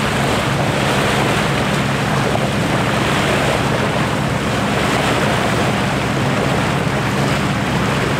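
Wind rushing over the microphone and water washing past the hull of a sailboat under way, with the steady low hum of its engine underneath.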